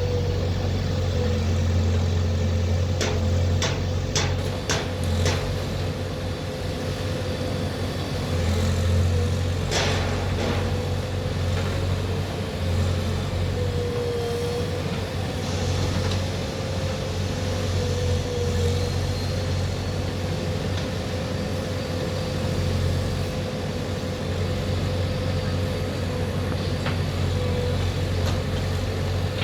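JCB 3DX backhoe loader's diesel engine running steadily while loading soil, with a quick run of sharp knocks about three to five seconds in and another near ten seconds.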